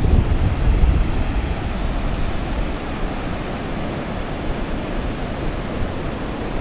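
Sea surf washing on a beach, a steady wash of noise, with wind buffeting the microphone, heaviest in the first second.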